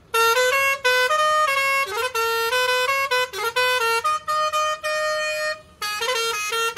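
Bajrang six-pipe musical air-pressure truck horn playing a tune of short notes that step from pitch to pitch, with a brief break a little before the end.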